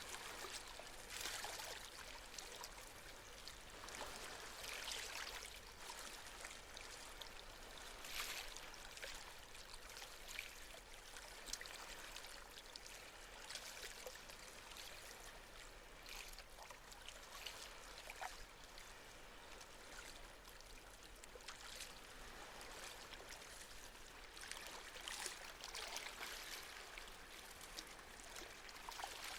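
Small sea waves lapping and washing on the shore, a soft hiss of water that swells and ebbs every few seconds with fine crackles of foam.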